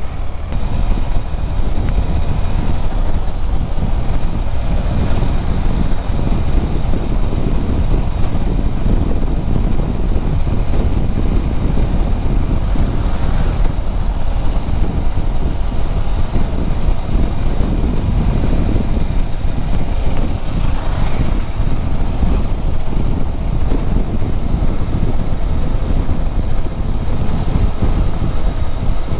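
Wind rushing over the microphone of a motorcycle riding at speed, with the KTM 390 Adventure X's single-cylinder engine running underneath. The noise is steady throughout, with a couple of brief swells.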